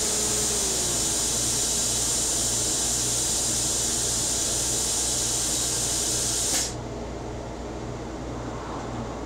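CNC plasma cutter's torch cutting steel plate: a loud, steady hiss that cuts off suddenly about two-thirds of the way in as the arc goes out at the end of the cut. A lower machine hum carries on underneath.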